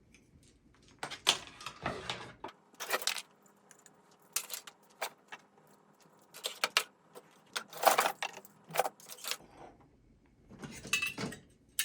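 Hard fire alarm device parts clinking and rattling as they are handled, in about eight short irregular bursts with quiet gaps between.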